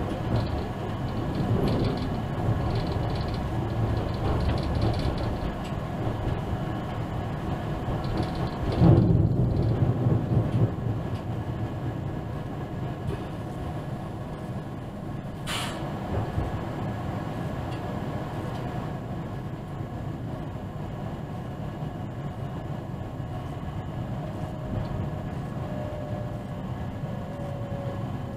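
ÖBB class 4124 electric multiple unit running along the track, heard from inside the driver's cab as a steady low rumble. The rumble grows louder for a couple of seconds about nine seconds in, a short hiss comes at about fifteen seconds, and a faint tone slides down in pitch near the end.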